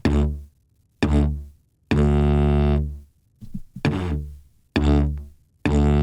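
Didgeridoo playing the drone-attack exercise: short drones on the same low note, each starting sharply, in pairs, each pair followed by a longer held drone of about a second. Two short attacks and a held drone, then two more short attacks, with a second held drone starting near the end.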